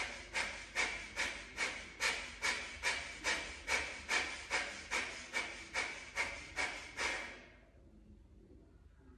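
Breath of fire through the left nostril alone: rapid, forceful sniffing exhalations, about two and a half a second in an even rhythm, stopping about seven and a half seconds in.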